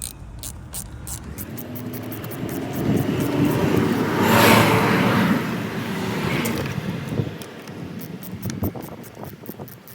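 A road vehicle passing by: its engine and tyre noise build up, are loudest about four and a half seconds in, then fade away.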